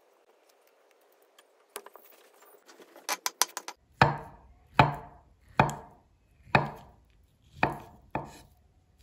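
Chef's knife cutting down through soft avocado onto a wooden cutting board. A few light clicks come first, then six firm chops, about one a second, starting about four seconds in.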